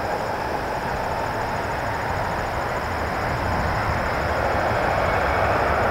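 Twin Rolls-Royce Trent 700 turbofan engines of an Airbus A330 at takeoff power: a steady jet roar that grows a little louder near the end.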